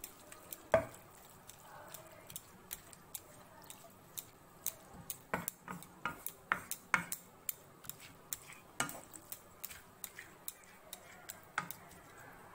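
A spatula stirring minced mutton in a frying pan, sautéing it: irregular clicks and scrapes against the pan, the loudest knock about a second in.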